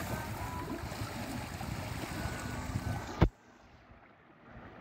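Wind and water noise aboard a small fishing boat at sea. It ends with a sharp click a little over three seconds in, and after that the sound is much quieter.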